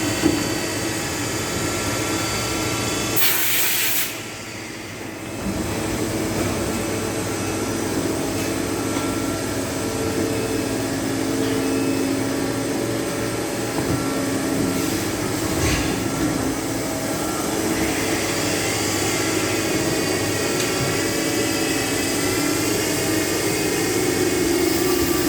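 CNC lathe running: a steady machine hum with several whining tones. A short hiss comes about three seconds in, and later a whine rises and falls.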